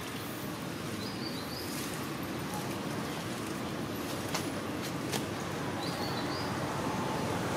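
Outdoor ambience: a steady low rushing background noise, with a bird giving a short warbling chirp twice, about a second in and again near six seconds. A few faint ticks are scattered through it.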